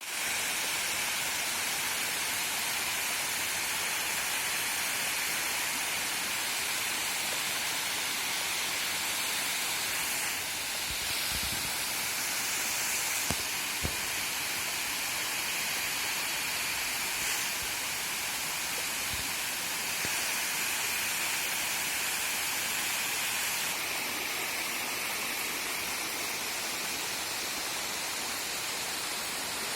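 Steady rushing water, with no break in its flow. Two faint low knocks come about halfway through.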